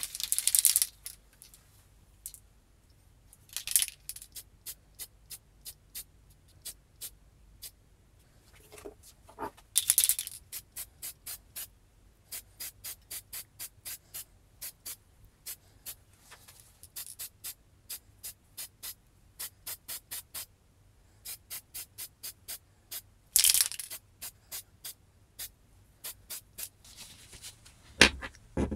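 Aerosol spray can spraying drill parts in several hissing blasts about a second long, with long runs of evenly spaced rattles, about two to three a second, between them: the can being shaken, its mixing ball rattling. Near the end, heavier knocks of a small metal vise being handled.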